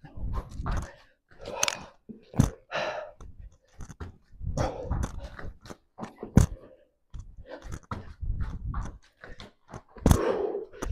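A person doing burpees on a gym floor mat: irregular thumps and scuffs as hands and feet hit the floor and the jumps land, with a few sharp thuds, and hard breathing between them.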